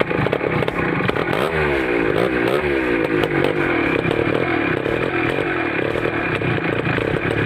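Suzuki two-stroke motorcycle engine running, its revs rising and falling a few times between about one and a half and three seconds in, then running steadily, as the newly fitted quick throttle is tried out.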